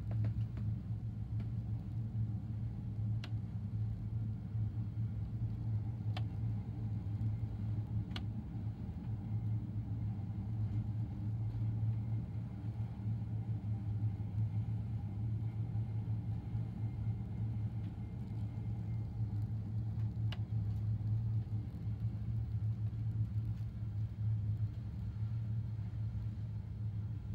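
Steady low engine rumble heard from inside a bus cabin while riding a cable ferry, with a few faint light clicks.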